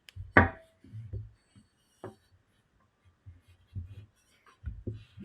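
Short knocks and clicks of AR-15-pattern gun parts (barrel, upper receiver, barrel nut) being handled and set down on a work surface, with the sharpest clink about half a second in, ringing briefly.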